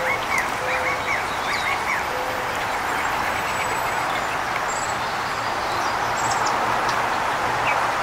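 Wild birds calling over a steady background hum: a few low cooing notes and a quick run of chirps in the first two seconds, then scattered short high chirps.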